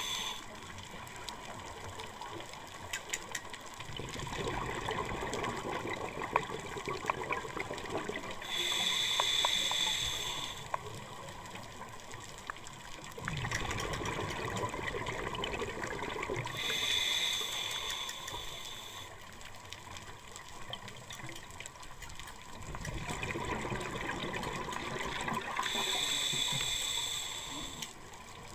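Scuba diver breathing through a regulator underwater: a short hiss on each inhale, about every eight seconds, alternating with a longer rush of exhaled bubbles.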